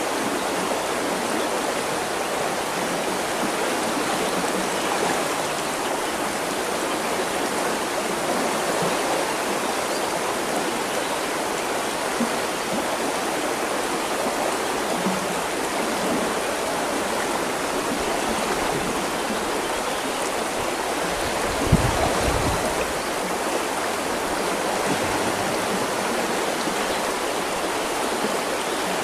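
River water flowing in a steady rush. About three quarters of the way through there is a brief low thump.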